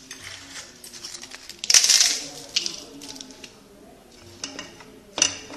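Crisp papdi crackling as it is crushed by hand over a bowl of chaat, with a loud burst of crunching about two seconds in and a sharp click near the end.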